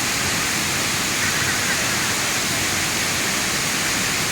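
Waterfall rushing steadily: a constant even hiss of falling water.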